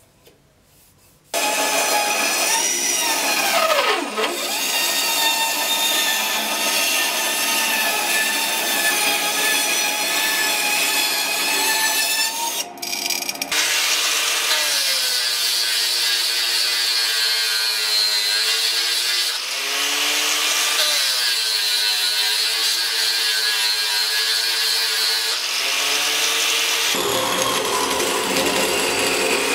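Power tools running one after another, starting suddenly about a second in. First a whining machine whose pitch dips and recovers once. Then an electric angle grinder whose whine sags several times as it is pressed into the work, and near the end a metal-cutting band saw running.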